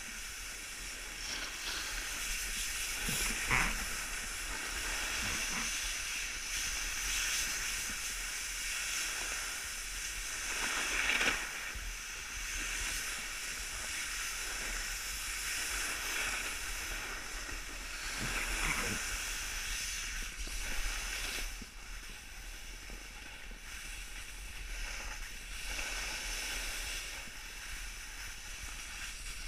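Steady hissing scrape of a rider sliding over packed snow, with a few louder scrapes about three and a half, eleven and nineteen seconds in.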